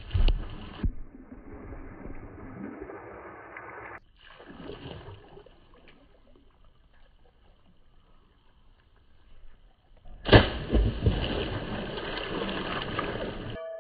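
Objects splashing into a swimming pool in a string of separate clips: a splash at the start, a quieter stretch of lapping water in the middle, and a sudden loud splash about ten seconds in followed by churning water.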